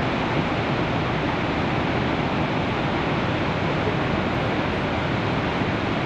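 Steady, unbroken rush of falling water from the Horseshoe Falls at Niagara Falls.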